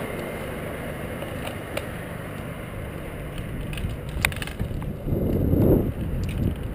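Wind buffeting the microphone of a bike-mounted camera while riding along a street, with a few sharp clicks from the bike. The wind noise grows louder about five seconds in as the ride picks up speed.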